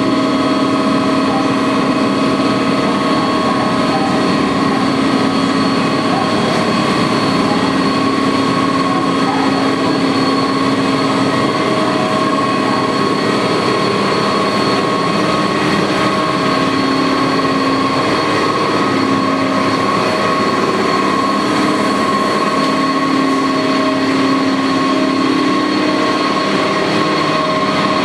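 SNCF BB 22200 electric locomotive standing with its cooling blowers and electrical equipment running: a loud, steady rushing noise with several steady whining tones on top.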